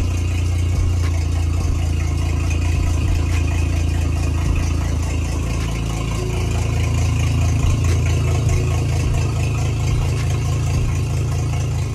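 Mercury Racing 300R outboard idling steadily while run on a garden-hose flush out of the water.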